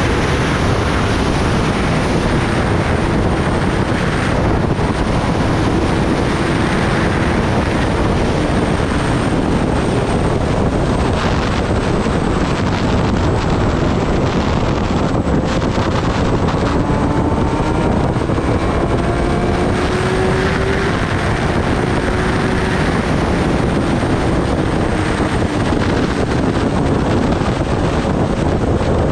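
Kawasaki Ninja ZX-10R inline-four sport bike at highway speed, heard as a steady rush of wind on the microphone with the engine note faint beneath it. The engine pitch climbs slowly through the second half as the bike accelerates.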